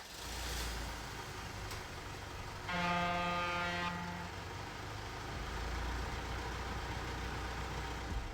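Steady low outdoor rumble, with a single horn blast lasting a little over a second near the middle.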